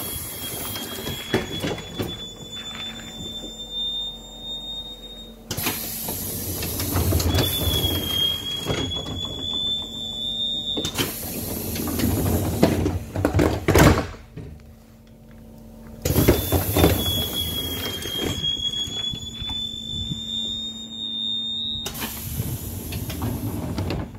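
Doors of a KVB Stadtbahn car (cars 2031–2035) working: three times a high whining tone holds for about four to five seconds, creeping slightly up in pitch, then stops abruptly. Between the tones come the rush and low thuds of the door leaves moving and closing.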